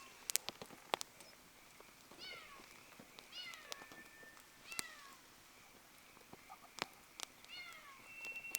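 Wood fire crackling, with scattered sharp pops, while an animal gives about four short, falling, meow-like calls.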